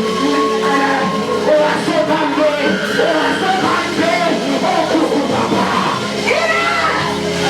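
Worship music with held chords under voices singing and yelling.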